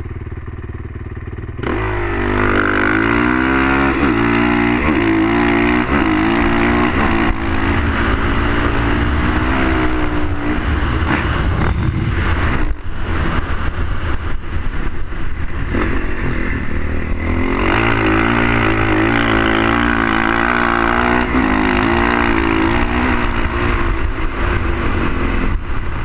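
Dirt bike engine accelerating hard, its pitch climbing and dropping back with each upshift in the first few seconds, then running at high revs in fifth gear; it eases briefly about twelve seconds in and climbs again near eighteen seconds.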